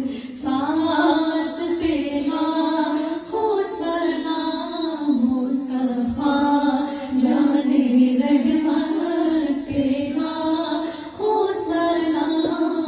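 A woman's voice singing a naat, an Urdu devotional song praising the Prophet, in a slow melodic line with long held notes.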